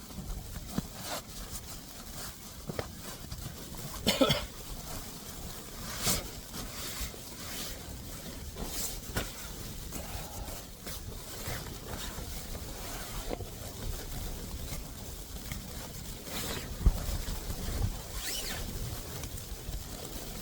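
Irregular rustling, crackles and knocks of tent fabric and gear being handled, over a steady hiss of blizzard wind. Louder crackling handling noises come about four, six and nine seconds in, and again near the end.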